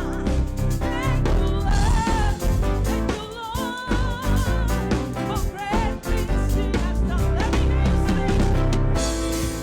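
Gospel praise-and-worship music from a church band: a singer with vibrato over a steady bass and drum groove.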